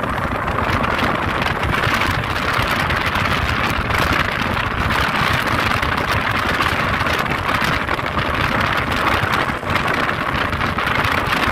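Speedboat's outboard motor running steadily under way, with the hiss of water rushing past the hull.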